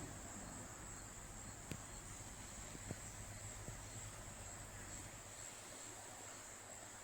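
Steady, high-pitched insect chorus, with two short sharp clicks about two and three seconds in.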